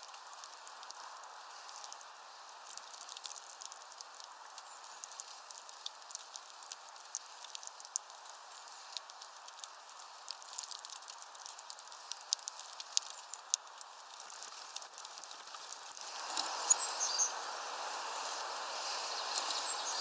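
Light rain pattering: a steady hiss with many small scattered ticks. About 16 seconds in, the background hiss becomes louder, with a few sharper taps just after.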